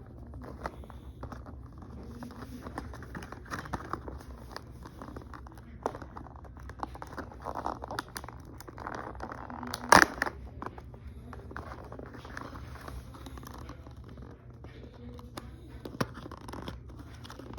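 A bag being crinkled and torn open by hand, with a steady rustle dotted with small clicks. A loud sharp snap comes about ten seconds in and a smaller one near the end, over a steady low hum.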